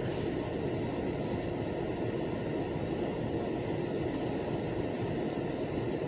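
Freight train cars rolling past, a steady, even rolling noise with no distinct knocks.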